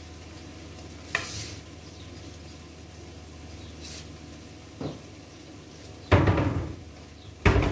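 Rummaging in a lower kitchen cabinet and taking out a glass jar: a short click about a second in, then loud clunks and clatter about six seconds in and again near the end, over a steady low hum.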